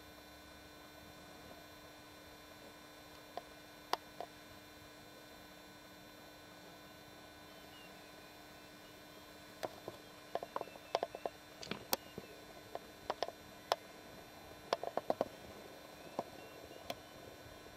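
A faint steady electrical hum, with a couple of sharp clicks early and then a run of sharp clicks and taps from about ten seconds in.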